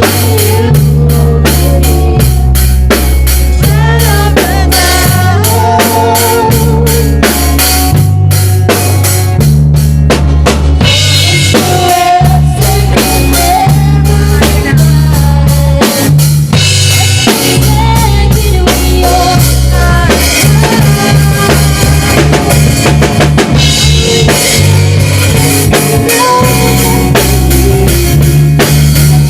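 A small band playing a ballad: a drum kit with snare, rimshots and bass drum keeping a steady beat under a stepping bass guitar line, with a wavering melody line above.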